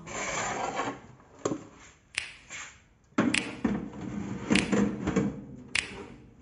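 About five sharp clicks or knocks, spaced roughly a second apart, over quieter handling noise in a small room.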